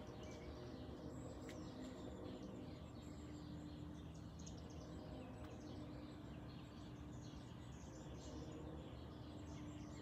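Faint dawn chorus of many small birds chirping and calling, short overlapping notes throughout, over a steady low background hum.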